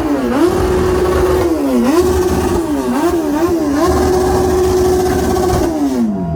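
Car engine revved hard again and again, its pitch rising and falling and repeatedly held flat at the rev limiter, the longest hold lasting nearly two seconds before it drops away near the end.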